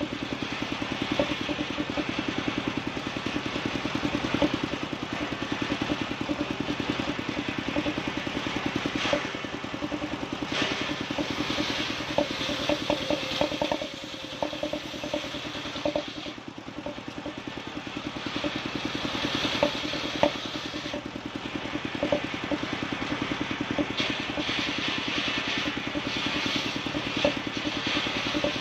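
Engine-driven sawmill circular saw ripping a timber of bayur (wadang) wood lengthwise. The engine runs steadily with an even pulse, while the hiss of the blade cutting rises and falls as the timber is pushed through, with occasional clatter of wood.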